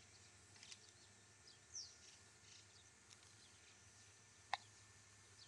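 Near silence with a few faint, short, high bird chirps, and one short sharp click about four and a half seconds in.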